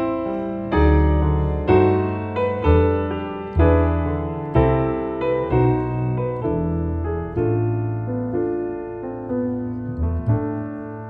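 Grand piano and plucked double bass playing together in a slow duo piece: low bass notes struck about once a second under sustained piano chords, softening near the end.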